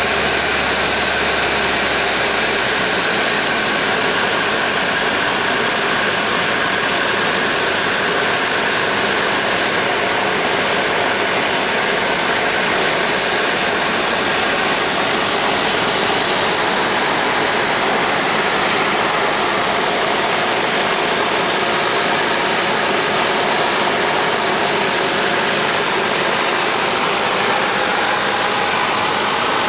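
Cessna 172's single piston engine and propeller running with a steady drone.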